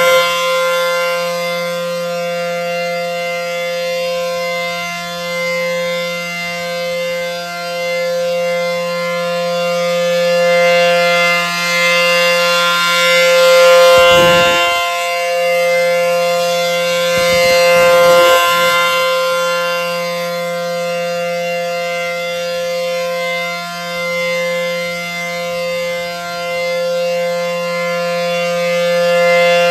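ACA P-10 (Penetrator 10) dual-tone outdoor warning siren sounding a steady tone during a tornado siren test. Its pitch holds level while the loudness swells and fades as it rotates.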